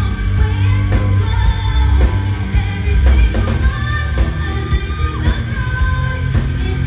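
Live rock band playing loudly, with a female singer over electric guitar, bass guitar and drums, and a heavy bass and kick drum.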